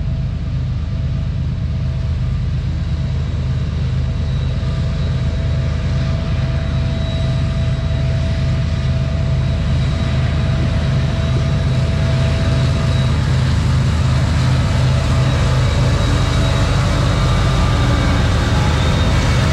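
Freight train led by two diesel locomotives approaching and passing close by: a steady low rumble that grows gradually louder as they draw near.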